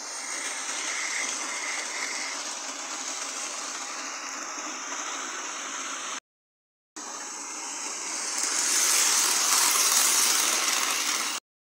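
Model King class locomotive and coaches running fast on model railway track, a steady whirring rattle of the motor and wheels on the rails. It grows louder as the coaches pass close by near the end, and it breaks off for under a second about six seconds in.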